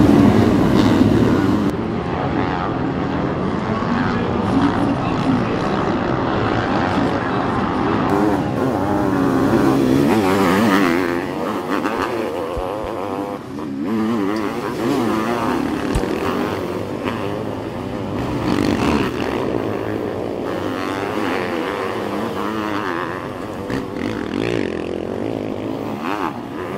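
A pack of sidecar motocross outfits racing, many motorcycle engines revving together, their pitches rising and falling as they accelerate and shift over the dirt track. It is loudest in the first second or two, just after the start.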